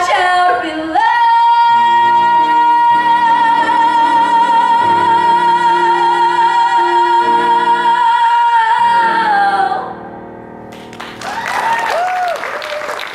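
Female singer holding one long high final note with vibrato over sustained instrumental chords; the note bends down and ends about ten seconds in. The audience then breaks into applause and cheering.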